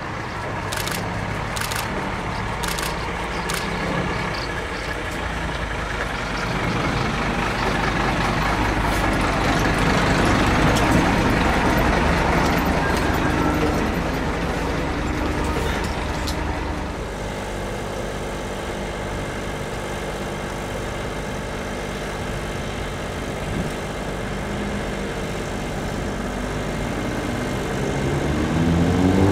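Diesel engine of the locomotive-styled trailer bus idling at a stop, a steady low hum. A few sharp ticks come in the first seconds, and a long noisy rush swells through the middle and cuts off suddenly. Near the end the engine begins to rise in pitch.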